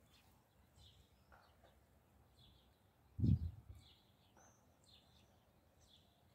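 Small birds chirping faintly and repeatedly. A little over three seconds in comes a brief low thump on the microphone, the loudest sound.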